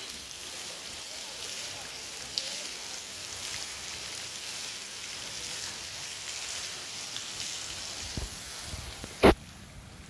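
Steady splashing hiss of many small fountain jets pouring from statues into a pond. About nine seconds in, a single sudden loud thump cuts through it.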